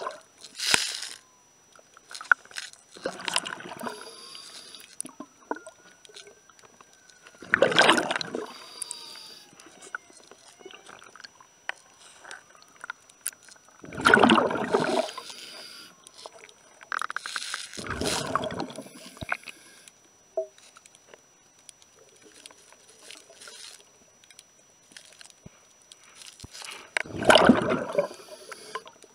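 Underwater bubbling from a diver's scuba regulator as he exhales, a loud burst of about a second every three to six seconds, with faint clicks in between.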